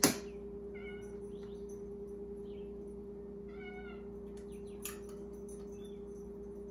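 A cat meowing faintly, with two short calls about a second in and just before four seconds in, and a few fainter ones between, over a steady low hum. A single light tap comes about five seconds in as an egg is cracked against a bowl.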